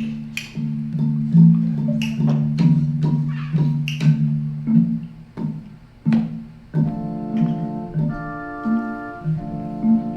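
Instrumental music: a low bass line with regular sharp percussive hits, joined about seven seconds in by sustained chords.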